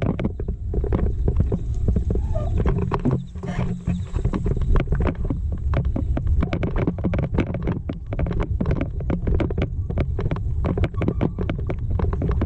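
Mountain bike jolting over a rough dirt trail, with rapid, irregular clicks and rattles from the bike, under a steady low rumble of wind buffeting the microphone.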